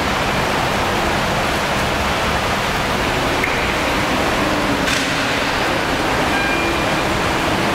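Steady, loud rushing noise with faint steady tones in it, and one brief click about five seconds in.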